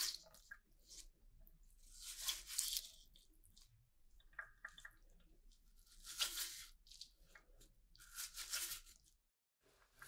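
Wet robot-vacuum brush bar being handled over a sink after rinsing: water being squeezed and shaken out of its soaked bristles. Four separate squishing, crunching rustles come a few seconds apart, with faint crackling between them.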